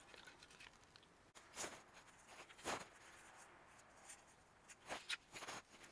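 Near silence, with three faint, brief rustles and taps from a small stiff piece with a metal curtain-rod hook being handled in the fingers.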